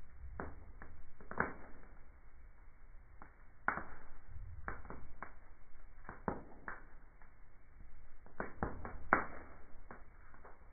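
Wood fire crackling on a fireplace grate, heard slowed down in slow-motion playback: a dozen or so irregular, muffled pops over a low rumble, the loudest about nine seconds in.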